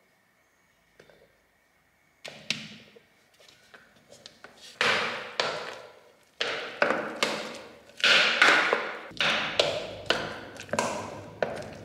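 Small spatula stirring tapioca flour into thick blended chicken paste in a plastic blender jug: repeated stirring and scraping strokes. They start about two seconds in and come quicker and louder, about two to three a second near the end.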